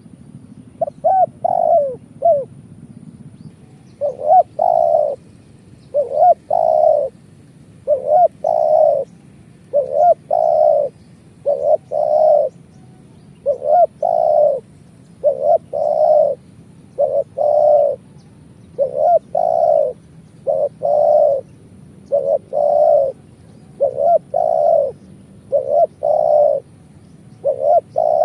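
Spotted dove (tekukur) cooing over and over in its 'kuk 2' call type: low coo phrases of two or three notes, about one every two seconds, after a short pause near the start.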